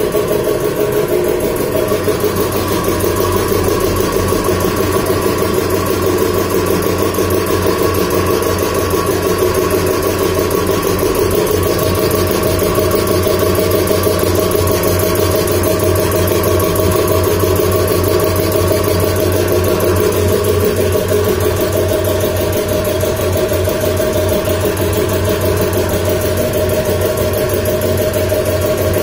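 Belt-driven reciprocating air compressor running steadily, a continuous mechanical hum with a fast, even pulsing.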